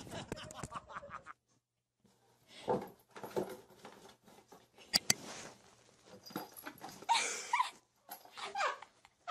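A cat scuffling with a cardboard tissue box, with knocks and rustles, and a few short whining cries about seven and eight seconds in.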